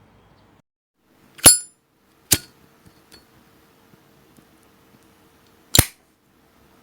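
Three sharp metallic clicks from a vintage Zippo lighter's hinged steel or brass case, the first with a brief ringing clink; the second follows close behind and the third comes about three seconds later.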